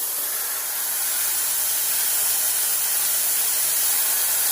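A 17-gallon air compressor runs, filling its linked 12-gallon extra tank near its 125 psi cut-out, with a steady loud hiss of rushing air.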